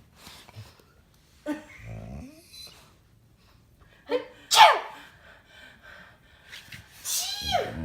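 A person's sneezes, mostly faked, with a collie vocalizing in reaction. There are three separate bursts, the loudest just under five seconds in.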